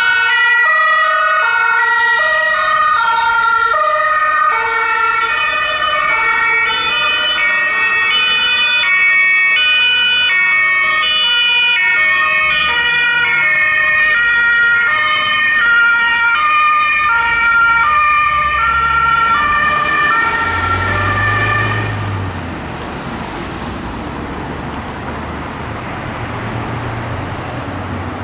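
German emergency vehicle's two-tone siren (Martinshorn) alternating between a high and a low note. It stops about 22 seconds in, leaving the engine and tyre noise of passing vehicles.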